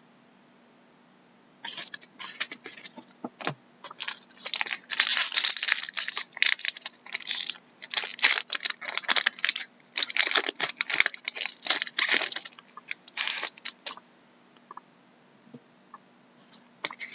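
Foil trading-card pack wrapper being torn open and crinkled by hand: a dense run of crackling and tearing starts about a second and a half in and dies down near the end, leaving lighter rustles of cards being handled.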